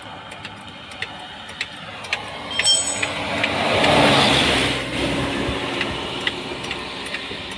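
A bus passing close by: its engine and tyre noise swell to a peak about four seconds in and fade away, over scattered sharp metallic clicks.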